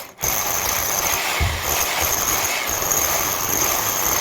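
Electric drill cutting a concrete wall with a 65 mm concrete hole saw: a steady grinding with a high whine over it. It stops for a moment at the start, then cuts on.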